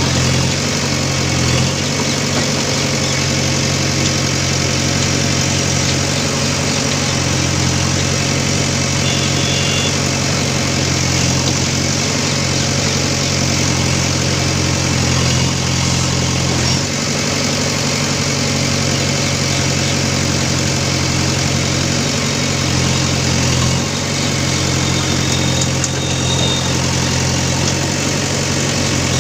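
JCB backhoe loader's diesel engine running steadily, its note dipping briefly a few times.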